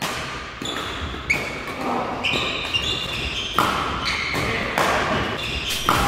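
Badminton rally: sharp racket strikes on the shuttlecock every second or so, with court shoes squeaking on the hall floor between shots.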